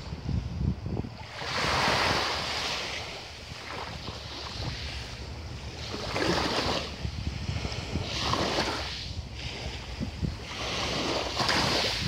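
Small sea waves lapping onto a fine-pebble shore, four washes of hiss swelling and fading over the span, a few seconds apart. A low rumble of wind on the microphone runs underneath.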